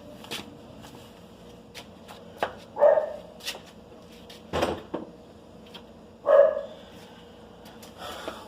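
A dog barks twice, a few seconds apart, with a single knock between the barks.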